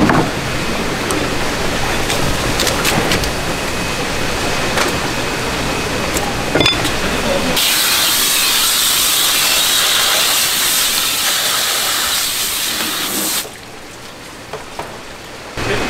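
Pressurised water spray hissing over a flatfish on a wooden cutting block, rinsing it, for about six seconds from the middle of the stretch. Before it there is fish-shop background noise with a few small knocks; after the spray stops, the sound falls to a quieter murmur.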